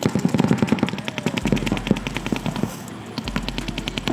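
Paintball markers firing in rapid strings, about a dozen shots a second, with a brief lull about three seconds in.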